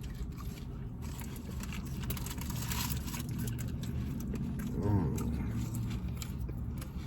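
Steady low hum of a car idling, heard from inside the cabin, under small clicks and rustles of someone eating close to the microphone, with a brief hum of voice about five seconds in.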